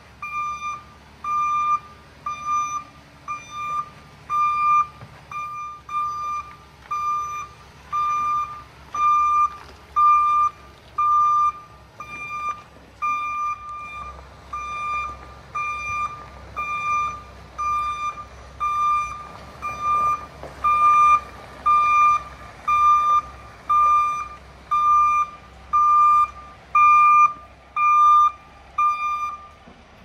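Concrete pump truck's backup alarm beeping steadily as the truck reverses, one even beep about one and a half times a second, with the truck's engine running low underneath.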